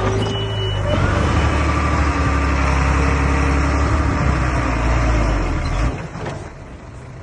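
Komatsu D21A small bulldozer's diesel engine running with a steady low rumble, falling away sharply about six seconds in.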